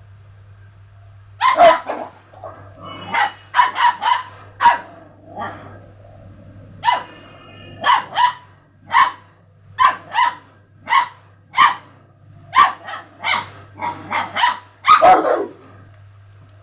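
A dog barking repeatedly, about twenty sharp barks at roughly one a second, starting about a second and a half in and stopping shortly before the end.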